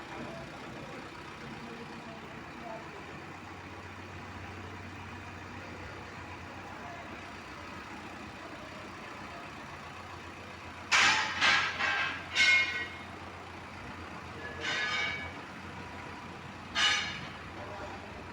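Diesel engine running steadily at low level, then, after about eleven seconds, a vehicle horn honking: four quick short toots, followed by two more single toots a couple of seconds apart.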